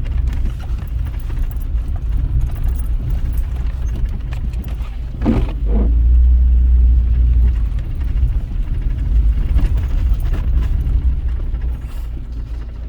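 A steady low rumble, with a short pitched sound about five seconds in.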